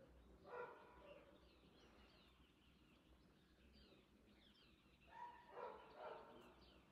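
Faint, distant dog barking over near silence: a couple of short barks about half a second in and three more near the end.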